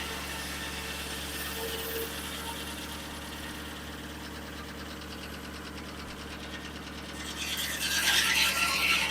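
1950 Corley circular sawmill running with a steady hum as the blade spins free, then from about seven seconds in a louder rasping noise builds as the saw blade cuts into the log.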